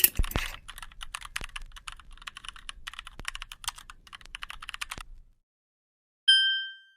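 Typing on a computer keyboard: a run of irregular key clicks for about five seconds. After a short pause, a single high chime rings out and fades away within about half a second.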